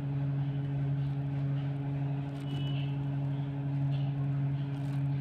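A steady low machine hum, like a motor or engine running, unchanged throughout, with a few faint high chirps.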